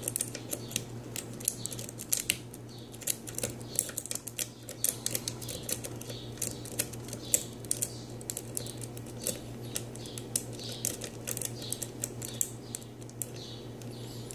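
Steel lock pick clicking and scratching against the pins of a pin-tumbler challenge lock held under tension, a rapid irregular run of small metallic clicks. A steady low hum runs underneath.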